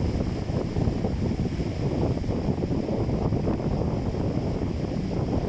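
Strong wind buffeting the microphone over the wash of Caspian Sea waves, a steady low rumbling noise that flutters irregularly.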